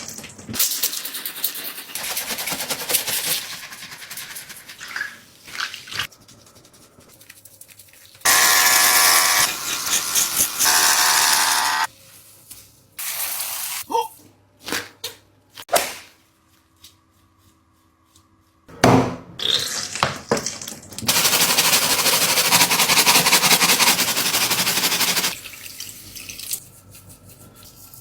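Running water hissing in long stretches while a squishy toy is cleaned, starting and stopping abruptly, with short clicks and rubbing sounds between.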